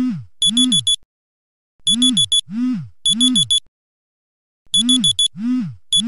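Smartphone alarm ringing. Each phrase is made of groups of four quick high beeps over a low tone that swoops up and back down. The phrase repeats about every three seconds with short silent gaps between.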